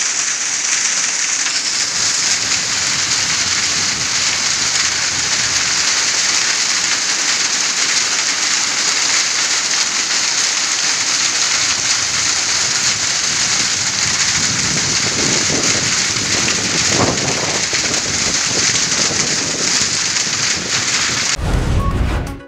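Heavy rain mixed with hail pelting a paved yard and garden plants: a loud, steady, dense hiss. About a second before the end it cuts off abruptly into a short music sting.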